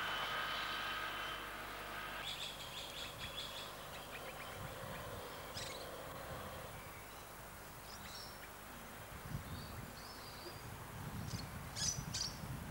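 Small birds chirping in short, scattered calls over a faint outdoor background. A distant railcar's steady whine dies away about two seconds in, and a low rumble comes up near the end.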